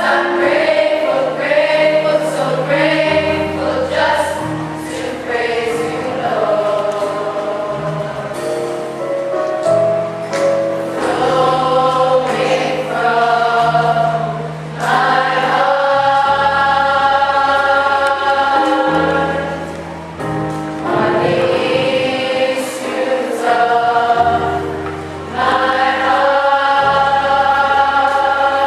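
A choir singing a gospel hymn with instrumental accompaniment, long held chords moving every second or two over a steady bass line.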